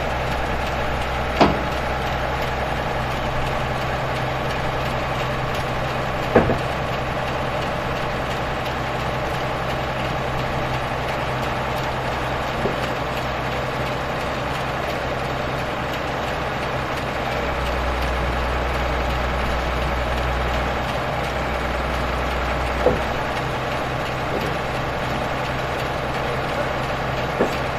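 Heavy vehicle engine idling steadily, its low drone swelling for a few seconds past the middle. Five short, sharp knocks sound over it, spread across the whole stretch.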